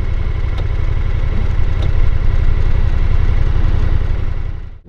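A vehicle engine running steadily with a low, even rumble, cutting off sharply just before the end.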